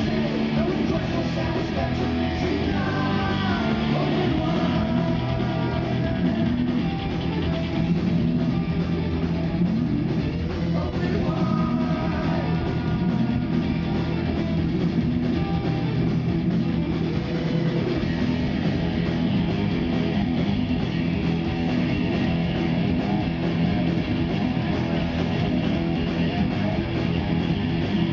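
Live rock band playing loudly and continuously: electric guitars, bass guitar and drums, heard from the audience floor.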